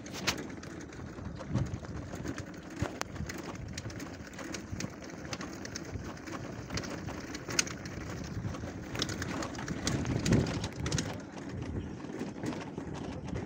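Irregular crunching footsteps on a stone-paved path, with wind rumbling on the phone's microphone.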